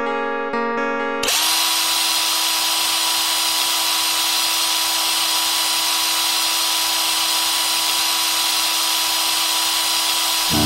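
Guitar music breaks off about a second in. An electric drill then whirs at one steady pitch until just before the end, when plucked guitar music comes back.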